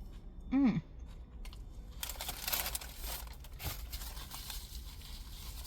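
Crinkly food packaging being handled and crumpled for a couple of seconds, with a brief falling hum from her voice about half a second in.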